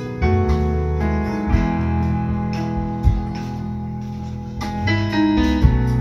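Live band music through PA loudspeakers: guitar-led chords with keyboard, changing every second or so, with no singing yet. Three short sharp hits cut through the music.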